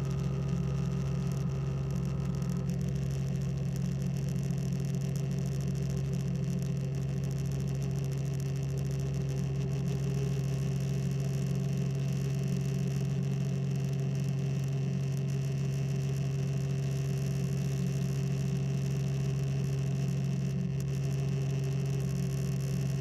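Small aircraft's engine and propeller droning steadily in cruise, heard from inside the cockpit: a constant low hum with higher tones over it, some of which drop out about three seconds in.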